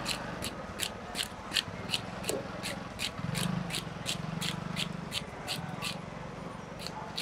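Scales being scraped off a large grass carp with a blade: a steady run of short, sharp scraping strokes, about two to three a second.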